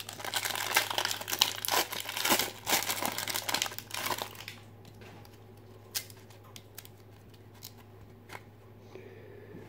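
Foil wrapper of a 1992 Fleer Ultra football card pack being torn open and crinkled for about four and a half seconds, then a few faint ticks as the stack of cards is handled.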